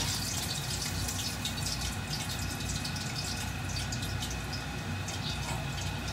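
Pork belly deep-frying in hot oil: a steady sizzle with fast, dense crackling and spattering as the skin crisps.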